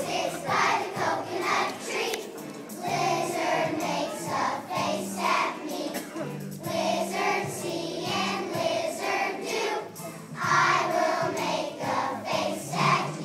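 Choir of young children singing a song in unison over an instrumental accompaniment with steady bass notes.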